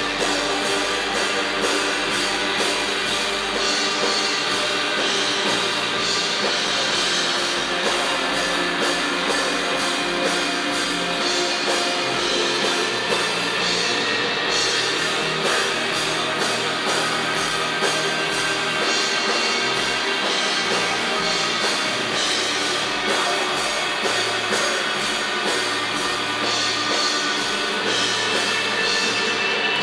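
Rock band playing live and loud, with electric guitars over a drum kit keeping a steady beat; no vocals.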